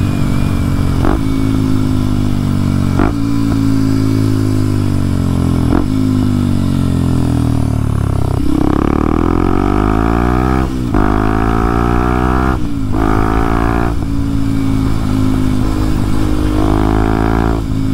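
Kawasaki KLX230SM's single-cylinder engine running on the move. The pitch sags as the bike slows through the first half, bottoms out about halfway, then climbs steeply through three gear changes, each marked by a brief drop, before settling to a steadier run near the end.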